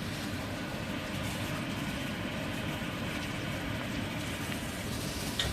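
Steady mechanical hum and rush of a kitchen extractor fan running, unchanging throughout, with a small click near the end.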